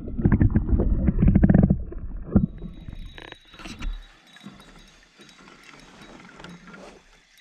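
Water sloshing and bubbling loudly around a camera held under the surface, easing off after about two seconds. Then comes the softer, steady wash of water around a gliding canoe.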